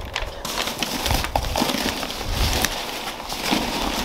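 Paper and cardboard being handled as a shipping box is opened: irregular rustling, crinkling and scraping.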